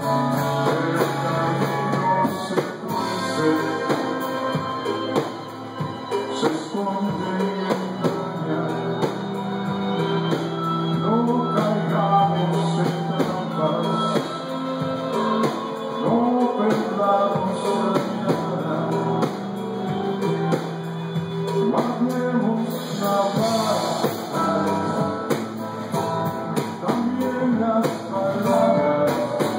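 Live rock band playing: a man singing into a microphone over guitar and drums.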